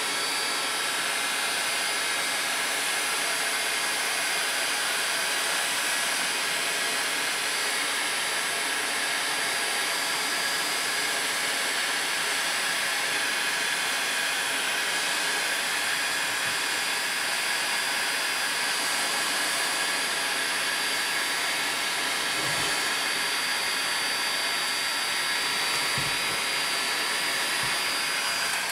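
Electric heat gun running steadily, its fan blowing hot air with a faint high whine, with a few soft knocks in the second half.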